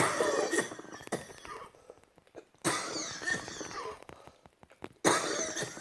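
A woman coughing in three harsh bouts, each starting suddenly and lasting about a second, with a brief gap between them; she has just said she woke up struggling to breathe.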